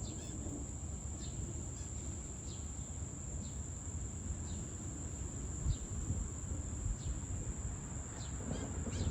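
Crickets trilling steadily at a high pitch over a low, even rumble of rain and distant thunder. The rumble swells near the end as the thunder grows.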